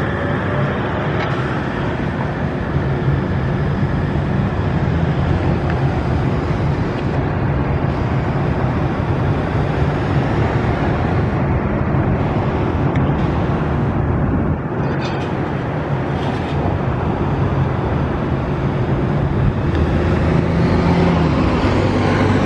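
A trolley-style city transit bus's engine running steadily as the bus drives in and pulls up, mixed with the steady noise of passing city traffic.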